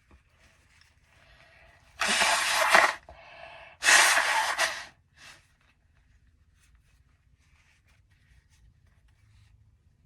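A person sneezing twice, about two seconds apart. Each sneeze follows a breathy intake, and the sneezes are the loudest sounds.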